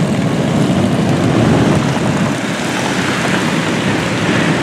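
Steady motor-vehicle engine and road noise, continuous and unbroken, heaviest in the low rumble.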